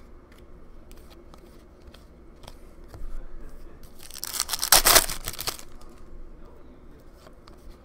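Foil wrapper of a trading-card pack torn open: a loud ripping crinkle lasting about a second and a half midway, among soft clicks and slides of cardboard cards being handled.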